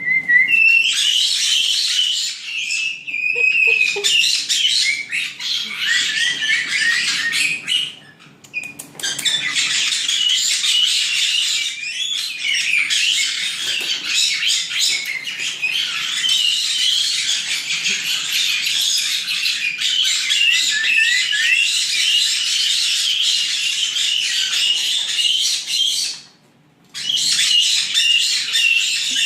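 A flock of young white-bellied caiques chattering and squawking together: dense, overlapping high-pitched calls. They break off briefly about 8 seconds in and again, nearly silent, for under a second about 26 seconds in.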